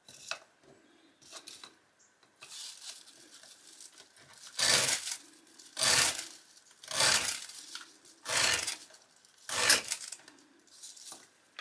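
A ferro rod scraped with the freshly ground spine of a Mora 510 carbon-steel knife, throwing sparks onto feather-stick shavings. A few soft scrapes come first, then five loud scrapes about one every second and a quarter.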